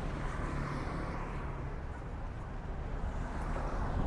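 Road traffic: motorbikes and cars running past, with a pickup truck driving by close near the end.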